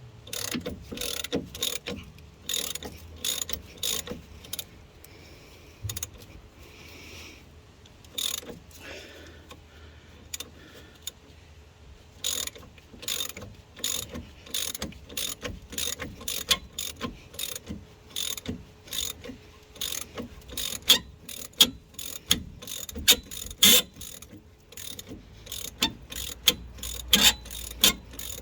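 Hand socket ratchet clicking in repeated bursts of short back-and-forth strokes as it runs off an already-cracked 18 mm nut, with the other side held by a spanner. It goes quiet for several seconds a few seconds in, then resumes, with the sharpest clicks near the end.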